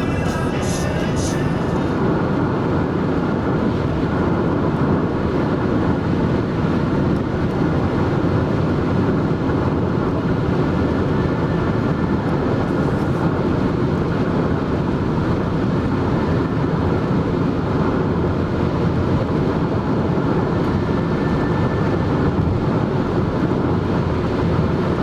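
Steady road and engine noise heard inside a moving car, a constant low rumble and tyre hiss without change.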